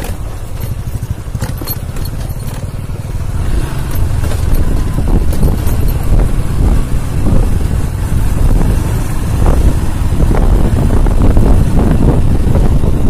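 Motorcycle running along a rough, rocky dirt track, with a steady engine rumble and frequent knocks and rattles from the bumps. It gets louder about four seconds in.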